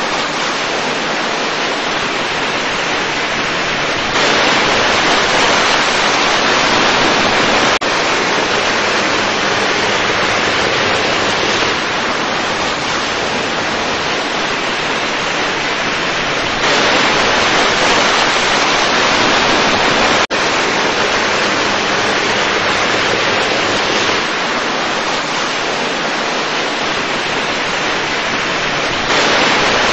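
Steady rushing hiss with no tone or rhythm in it, like running water or static, stepping louder and softer every few seconds, with a brief dip about eight seconds in and again about twenty seconds in.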